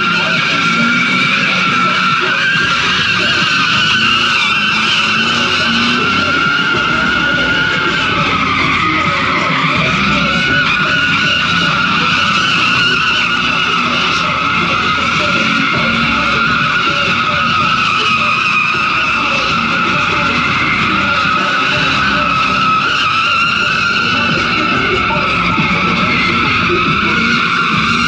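Drift car's tyres squealing without a break as it slides, the pitch wavering slightly, with the engine running hard underneath.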